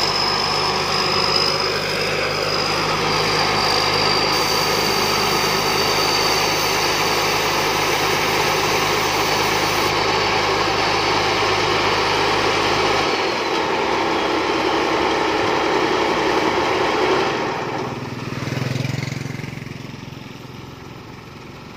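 Combine harvester's diesel engine running steadily under load, with a thin high whine that slowly drops in pitch. About two-thirds of the way through the deepest hum stops, and over the last few seconds the engine sound falls away.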